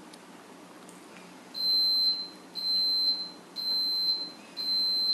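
Kitchen appliance timer beeping: steady, high-pitched electronic beeps, each about half a second long, repeating about once a second from about a second and a half in. It is the done signal that the bread being warmed and toasted is ready.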